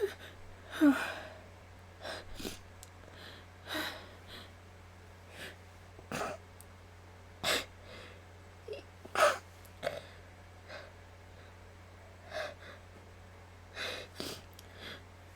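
A woman's short sniffs and sharp, gasping breaths, one every second or two, as a sneeze builds without yet coming; the two loudest catches come about a second in and near the middle. A steady low hum runs underneath.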